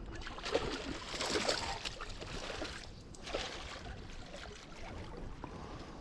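Water splashing and sloshing as a hooked fish thrashes at the surface while it is brought in. The splashing is heaviest in the first couple of seconds, with a further splash about three seconds in.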